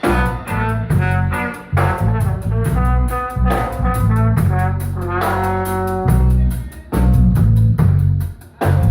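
Live instrumental band playing: brass lines over bass and drum kit, with regular cymbal strokes keeping time.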